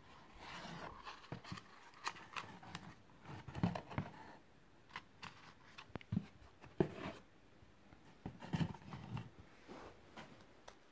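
Rubber flip-flops and their paper inserts being handled and lifted out of a cardboard shoebox: irregular rustling and scraping with sharp clicks and a few soft knocks.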